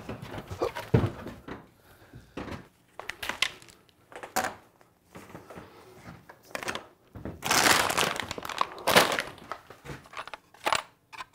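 Workshop handling noises: scattered clicks and knocks of tools and small parts being picked up and set down, with a longer stretch of plastic crinkling a little past halfway.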